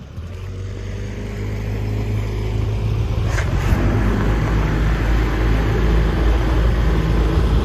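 Small boat's outboard motor running under throttle, growing steadily louder as the boat picks up speed, with a rush of water and wind over it.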